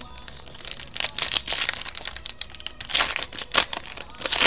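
Foil wrapper of a Panini Crown Royal trading-card pack being torn open and crinkled by hand, in irregular crackly bursts starting about a second in.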